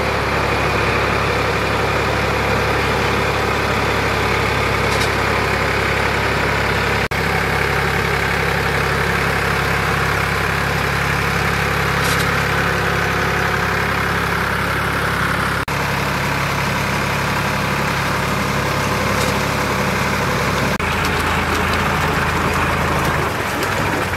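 Sonalika DI 47 RX tractor's diesel engine running steadily while it drives a rotavator through flooded paddy mud. Its low note shifts about three seconds before the end.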